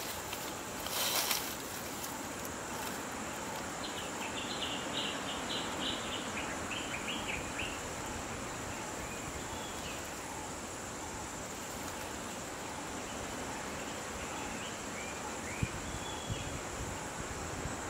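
Outdoor natural ambience: a steady hiss with a thin, high insect drone. A bird calls a quick run of short chirps a few seconds in, with a brief noisy rustle about a second in.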